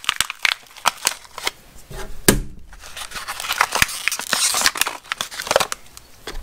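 Plastic packaging of magnetic hooks being torn and pulled apart by hand, crinkling and crackling with many sharp clicks, and one louder knock about two seconds in.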